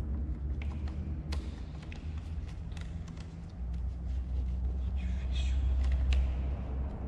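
Light clicks, taps and rubbery crinkles of a latex glove being stretched over the mouth of a plastic coolant reservoir to seal it, over a steady low background rumble that grows louder about halfway through.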